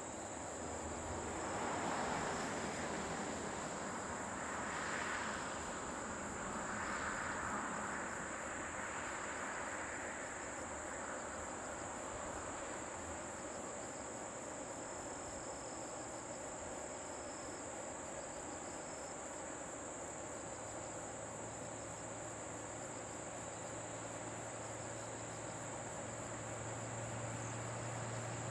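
Insects chirping steadily, a high, even trill with a fast, regular pulsing above it. Under them is a faint rushing noise that swells a few times in the first ten seconds, and a low hum that grows in the last third.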